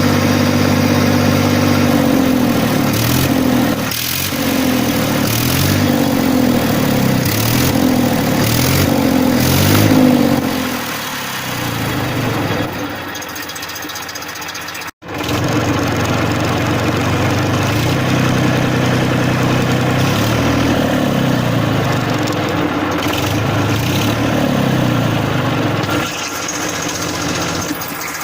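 Massey Ferguson 1035 DI tractor's three-cylinder diesel engine running with a steady hum. Its pitch wavers up and down repeatedly for the first ten seconds or so, then it runs steadily, with a momentary break about halfway through.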